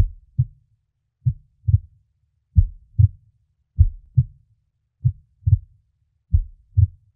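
Heartbeat sound effect: six pairs of low thumps, lub-dub, one pair about every 1.3 seconds.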